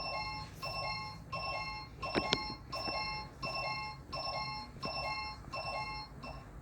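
An electronic alarm beeping a two-note pattern, a higher note dropping to a lower one, repeated about nine times at roughly 0.7-second intervals. A sharp click cuts in a little over two seconds in.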